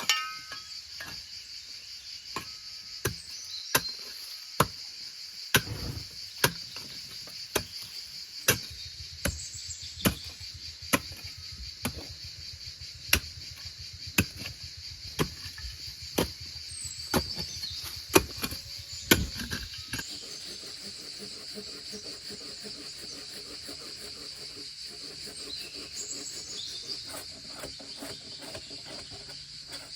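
A steady, high chorus of crickets, with a series of sharp knocks, roughly one a second, that stop about two-thirds of the way through.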